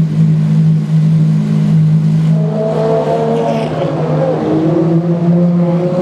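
Ferrari FXX V12 engines idling with a steady, deep note. About two and a half seconds in, a second engine note joins, its pitch rising and falling as a car moves off.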